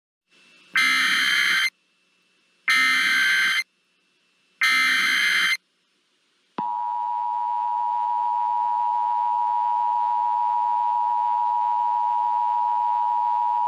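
Three screechy digital data bursts of about a second each, evenly spaced: an Emergency Alert System SAME header. About a second and a half later the steady two-tone EAS attention signal begins and holds on unchanged, marking the start of a new alert.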